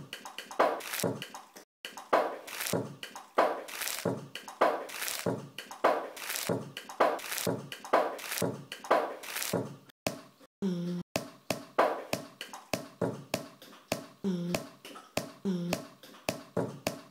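Beatbox-style rhythm of quick percussive hits, about two to three a second, with a few short low hummed notes in the second half.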